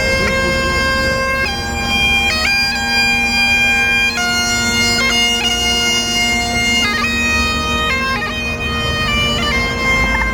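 Highland bagpipes playing a tune: a melody of held notes broken by quick grace notes over a constant drone.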